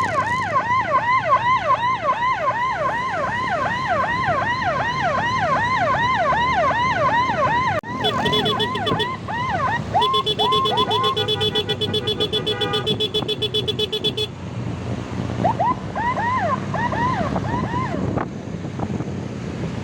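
Electronic emergency siren in a fast yelp, quick repeated sweeps, over low road noise. It breaks off about eight seconds in, switches to a steady, rapidly pulsing horn tone for about four seconds, then yelps again briefly and stops a couple of seconds before the end.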